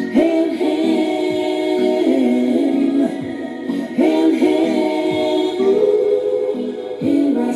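Reggae tune with layered, choir-like vocal harmonies singing held phrases, played over a sound system.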